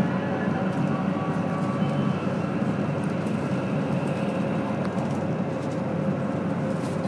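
Steady running noise heard inside a Tohoku Shinkansen passenger car as the train moves: an even low rumble with a faint steady hum.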